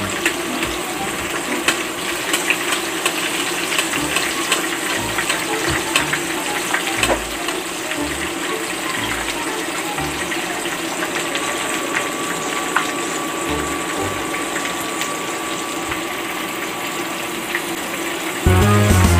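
Chicken pieces frying in hot oil in a pan: a steady sizzle with small crackles and pops. Background music comes in near the end.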